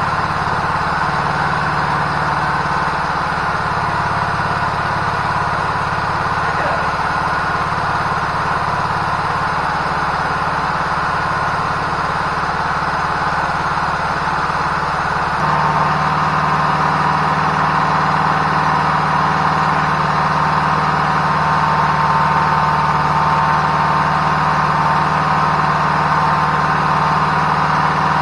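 Generator engine running steadily while it warms up after a cold start with the choke on. About halfway through, its note shifts and it gets a little louder.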